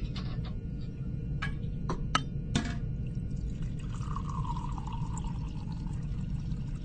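Sound effects: a steady low rumble, with several sharp clicks or drips in the first three seconds, then a tone that slides slowly downward for about two seconds.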